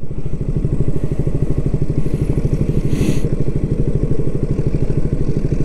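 Motorbike engine idling steadily with an even, rapid putter while the bike stands still. A short hiss sounds about three seconds in.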